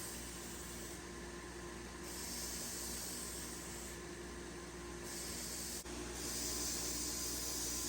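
Sanding a knife handle: a hissing scrape that comes and goes in passes of one to two seconds, over a steady low hum.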